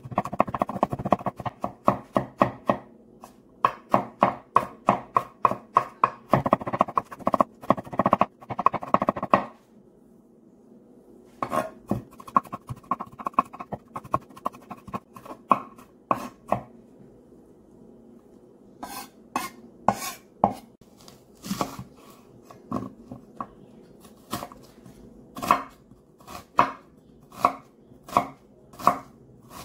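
Chef's knife rapidly chopping and mincing garlic on a wooden cutting board, with a short pause about a third of the way in. Later come slower, separate knife strokes on the board, about one a second, as a yellow onion is sliced.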